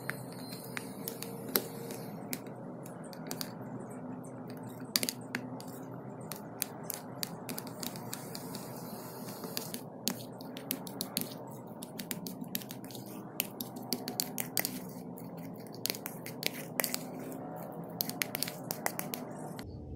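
A metal fork mashing steamed sweet potato in a plastic bowl: irregular sharp clicks and taps of the tines against the plastic, over a steady low background hum.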